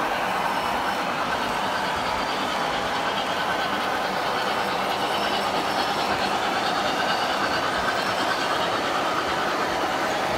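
Model trains rolling on track: a steady rumble and clatter of metal wheels as a diesel locomotive and a long string of autorack cars pass close by.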